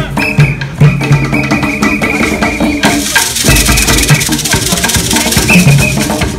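Live African-style hand drumming on tall wooden drums in a quick, steady rhythm, with a shaker rattling along. From about three seconds in, the shaker's dense rattle grows loud for a couple of seconds.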